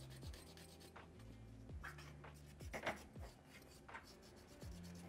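Faint scratchy rubbing as a cotton swab scrubs rotted light-seal foam off the metal frame of a Mamiya RB67 film back, in quick short strokes with a few stronger ones near the middle. Quiet background music with a low beat runs underneath.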